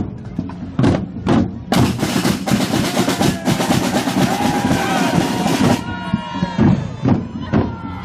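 Marching drums beating in a bonfire procession, bass and snare strikes about twice a second, broken by a long rolling snare rattle from about two seconds in to about six seconds. Crowd voices and shouts are heard over the drumming.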